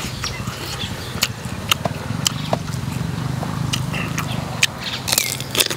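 A person chewing food close to the microphone, with irregular sharp, crisp crunches.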